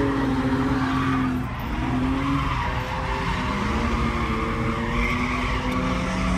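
BMW engines revving hard during tandem drifting, with tyres skidding and squealing, heard from inside the cabin of one of the cars. The revs drop briefly about a second and a half in, then climb again.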